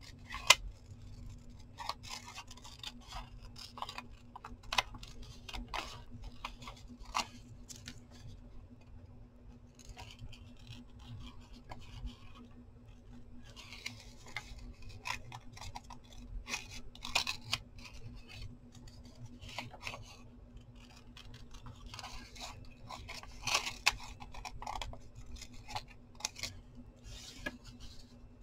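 Small scissors snipping around a drawing in a piece of brown paper: many short, irregular snips. A faint steady hum runs underneath.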